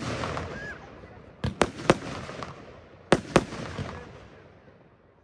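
Röder 'Farbtastisch' F2 consumer firework battery firing its shots: a group of three sharp bangs about a second and a half in, then two more about three seconds in, each dying away over a second or so.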